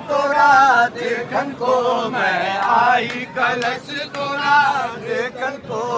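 A group of men's voices chanting a devotional song together, the melody wavering and rising and falling in continuous phrases.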